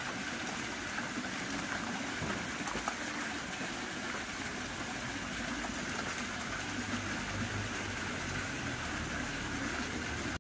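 Steady rushing and splashing of water in a koi pond, its surface churned by the feeding fish.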